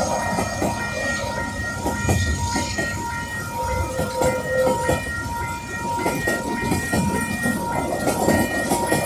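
Freight train wagons rolling through a level crossing, wheels clicking and knocking over the rail joints with a low rumble, while the crossing's Western Cullen Hayes bells ring steadily.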